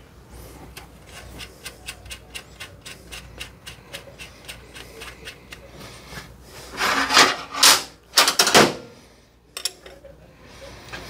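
Hand ratchet clicking steadily, about four clicks a second, as the band adjusting screw on a Powerglide transmission case is turned. A few louder scraping noises come about two-thirds of the way through.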